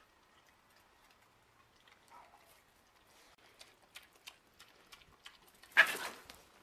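Faint scattered clicks and taps, then near the end one short, loud bark from a small dog confronting a pig.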